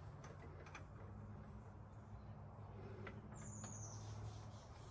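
Quiet background: a steady low hum with a few faint clicks, and one short, high, thin chirp about three seconds in.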